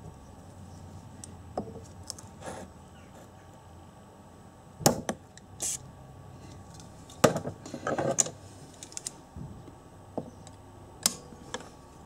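Small hand tools clinking and tapping against a steel alternator rotor on a workbench: scattered sharp metallic clicks and knocks, the loudest two about halfway through.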